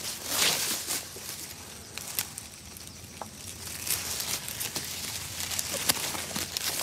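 Dry straw and stubble rustling and crackling with small snaps as a large snake slides through it. Loudest about half a second in, quieter for a couple of seconds, then busier again towards the end.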